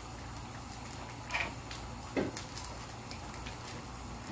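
Fish and tomato broth simmering in a wok: a steady bubbling with scattered light pops, and two brief louder sounds about one and a half and two seconds in.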